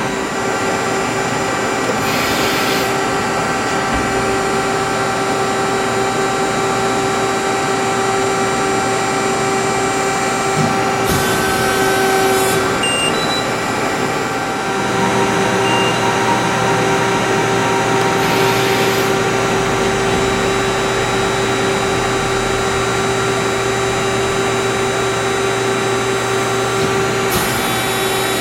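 Hydraulic CNC press brake running: a steady machine hum with several fixed tones, dipping briefly about halfway through. A short hiss comes four times, several seconds apart.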